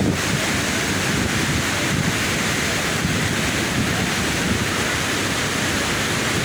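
Steady rushing of a waterfall, water falling and splashing in a constant dense noise.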